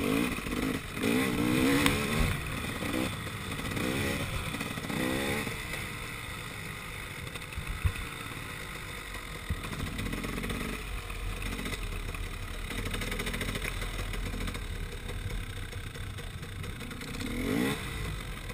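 KTM 300 XC two-stroke dirt bike engine revving up and down for the first few seconds, then running low and steady at slow speed, with a short rev-up near the end.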